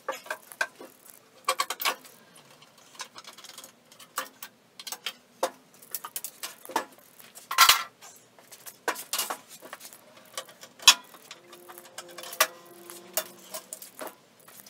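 Irregular clicks, clacks and wooden knocks as one-handed bar clamps are released and pulled off glued wooden workbench leg frames and the frames are shifted and stood up.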